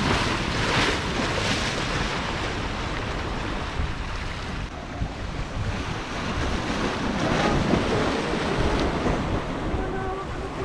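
Sea waves breaking and washing against shoreline rocks, with wind on the microphone. The surf swells louder twice, about a second in and again around seven seconds in.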